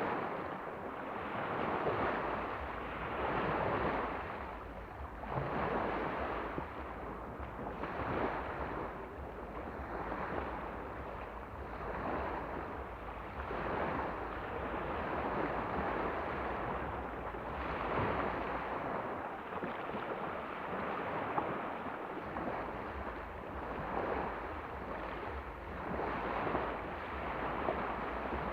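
Sea of Azov waves washing onto the shore, a rushing noise that swells and falls back every couple of seconds, with wind rumbling on the microphone.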